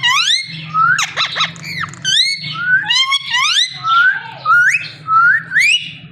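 Indian ringneck parakeet giving a run of short, loud whistles, each sliding upward in pitch, with a brief burst of wavering whistled notes about a second in. A steady low hum runs underneath.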